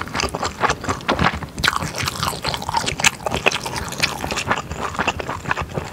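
Close-miked chewing of spicy yakisoba made with thick glass noodles and beef brisket: a dense, continuous run of short wet mouth clicks and smacks.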